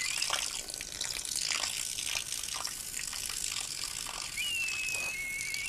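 Anime sound effect: a steady rushing hiss, with a high thin whistle that dips slightly and then holds, starting about four and a half seconds in.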